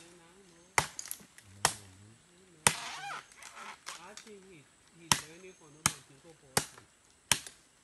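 Palm fronds and brush being chopped with a blade: sharp chops roughly once a second, about eight of them, with faint voices between the strikes.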